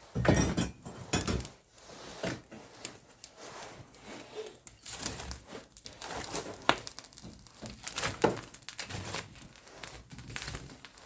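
Irregular knocking, thudding and crinkling of things being handled, with a heavy thud at the start and a few sharper knocks later on.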